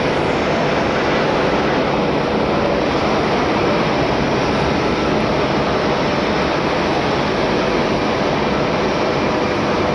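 Airbus A380's four Rolls-Royce Trent 900 turbofans at takeoff thrust during the takeoff roll: a steady, loud jet roar.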